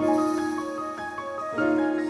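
Calm instrumental background music: a melody of ringing notes over a held lower note.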